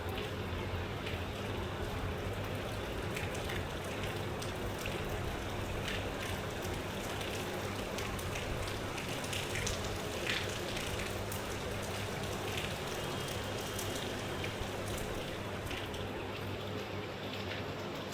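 Rain falling steadily, with many separate drop hits ticking on a surface.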